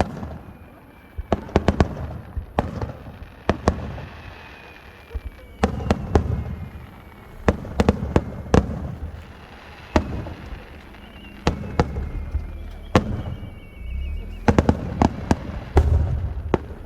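Fireworks display: aerial shells bursting with low booms and clusters of sharp crackling pops every second or two, the densest run of cracks near the end, with a faint long whistle in places.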